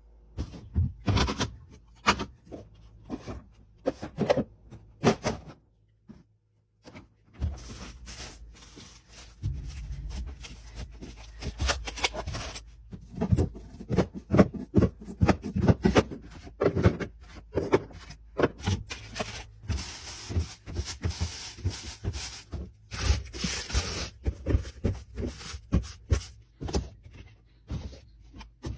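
Fridge restocking: a busy run of clicks, knocks and rustles as items are handled and set down, with a short break about six seconds in.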